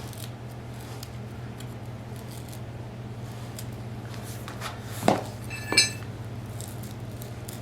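A low steady hum, with faint small ticks, a sharp tap about five seconds in, and a metal clink that rings briefly just before six seconds: metal hand tools being handled.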